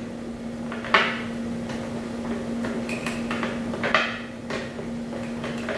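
Glass test tubes knocking and clinking against one another and their rack as tubes are set back in and lifted out: a few separate knocks, the clearest about a second in and about four seconds in. A steady low hum runs underneath.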